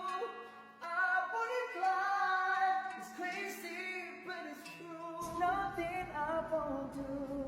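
Background song: a sung melody over soft accompaniment, with a low bass layer coming in about five seconds in.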